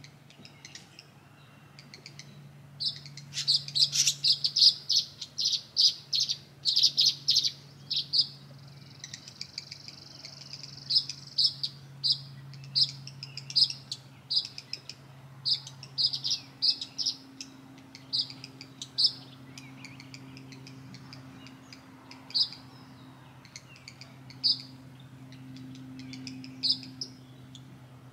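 Tree swallows chirping: a fast run of sharp, high chirps starting about three seconds in, a brief buzzy trill around nine to ten seconds, then single chirps spaced a second or two apart. A faint steady low hum runs underneath.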